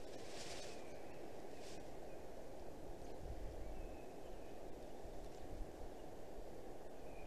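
Forest ambience: a steady low rush of wind, with a few faint, short, thin calls of small birds and a brief rustle at the start.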